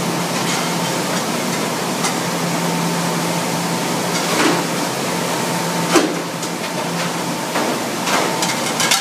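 Commercial conveyor dishwasher and the heated air curtain over its exit running together: a steady rushing hum, with a few short knocks of plastic dishware on the conveyor, the sharpest about six seconds in.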